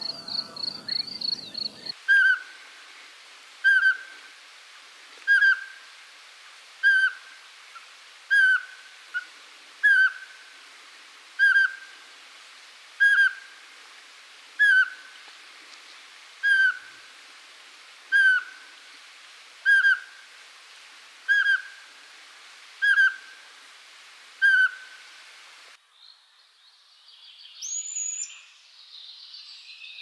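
Eurasian pygmy owl giving its territorial song: a long series of single, even, piping whistles, one about every 1.6 seconds, about fifteen in all. A fast high trill sounds in the first two seconds, and a different, higher bird call with a rising-then-falling whistle takes over near the end.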